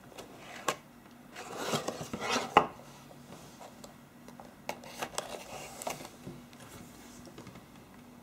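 Cardboard phone box being opened by hand: the lid rustles and scrapes, ending in a sharp knock about two and a half seconds in. Then scattered light clicks and taps as the phone is lifted from its cardboard tray and handled.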